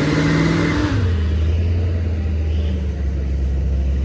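Vehicle engine revving under load while a pickup stuck in soft sand is towed out on a strap, then easing off about a second in to a steady low running note.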